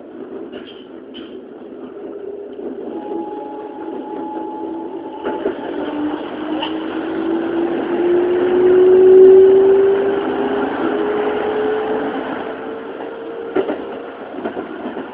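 Keikyu N1000-series train's Siemens GTO VVVF inverter and traction motors whining under power, the pitch rising smoothly as the train accelerates, over steady wheel-and-rail running noise heard from on board. A few short knocks come through, near the start and again late on.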